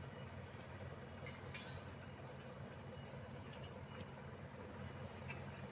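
Diesel engines of road-paving machinery running steadily, a low even rumble, with a couple of faint short clicks about a second and a half in.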